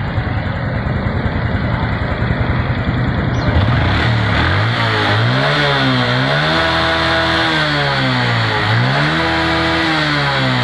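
Honda motorcycle's liquid-cooled single-cylinder engine running on test after its radiator was cleaned. It idles roughly at first, then from about four seconds in the throttle is opened twice, the revs rising and falling each time.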